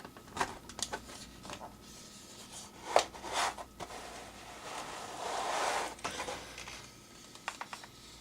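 Plastic blister packaging of a pocket knife being worked open by hand: scattered clicks and crinkles, a sharp click about three seconds in, and a longer scraping rustle around five to six seconds.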